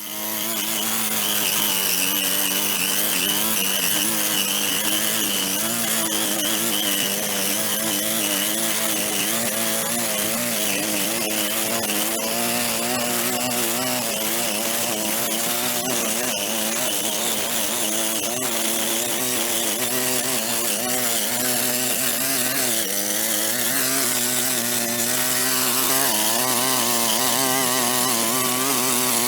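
Small petrol engine of a handheld power tool running steadily at high revs. Its pitch wavers slightly as the load changes.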